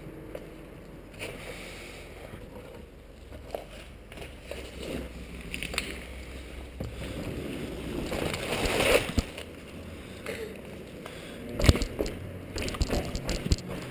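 Low rumble of handling and wind on a handheld camera's microphone, with scuffs and knocks as the person holding it scrambles over granite rock. A scraping swell comes just past the middle, then a sharp knock and a quick run of clicks near the end.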